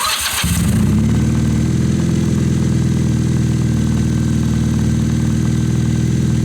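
Honda CB250 motorcycle engine starting up, catching in the first second, then idling steadily.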